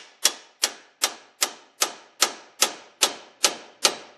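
Hammer striking a chisel in steady, even blows, about two and a half a second, each with a short metallic ring: a front wheel hub being chiselled loose from its housing.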